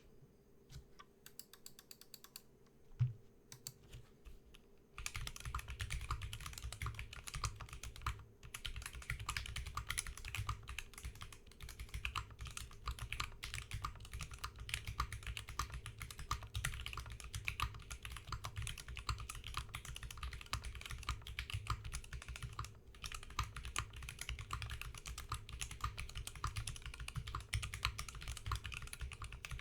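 Mechanical keyboard with stock, unlubed NovelKeys Silk Yellow linear switches being typed on. There are a few scattered keystrokes and one sharper knock about three seconds in, then fast continuous typing from about five seconds in.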